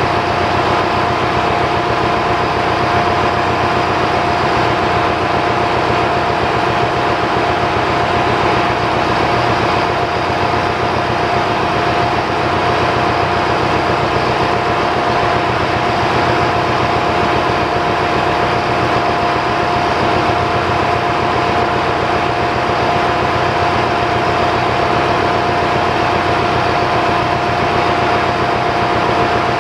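Steady engine-room noise of running machinery: a constant, loud drone with a steady whine over it, unchanging throughout.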